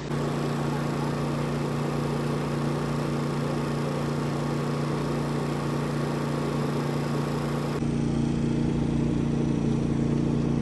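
A steady mechanical drone of a motor or engine running, with a constant low hum and no change in speed.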